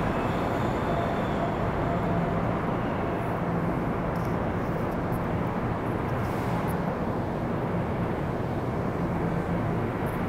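Steady rumble and low hum of an NJ Transit commuter train standing idle at an underground station platform, with no sharp sounds.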